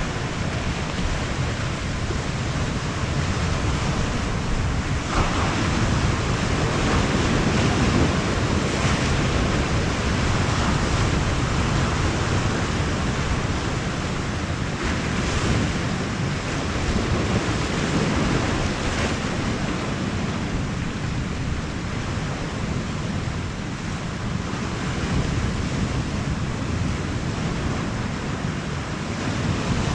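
Sea surf washing steadily against the shore, with wind rushing over the microphone. The noise swells briefly a few times.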